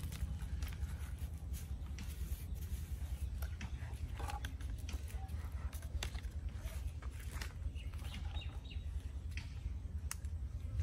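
Scattered light taps, clicks and rustles of bamboo skewers with grilled fish and crab being set down and shifted on banana leaves, over a steady low rumble.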